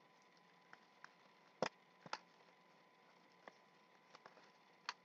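Faint, scattered clicks and taps from a doll's box packaging being handled and opened. The two loudest come about a second and a half and two seconds in.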